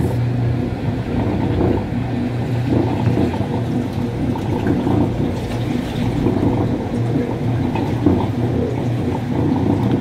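Top-loading washing machine spinning its drum slowly, the motor humming and rumbling steadily as it struggles to pick up speed. The washer is failing: it no longer agitates and spins only slowly.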